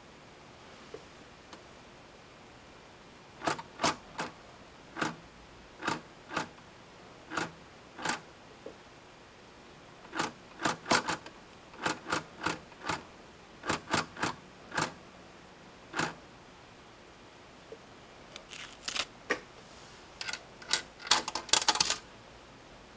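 Packard 'Butler' wallbox's selector knob being turned by hand, its title drum clicking from one selection to the next: single sharp clicks, irregularly spaced, with a quick flurry of clicks near the end.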